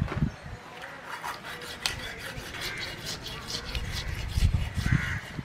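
Knife cutting through a ray's raw flesh near the gills, a run of short scraping, rasping strokes with a couple of low thuds.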